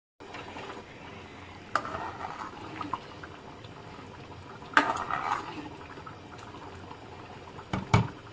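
Thick rice kheer simmering in a large pan: a steady bubbling, with three louder plops about two, five and eight seconds in.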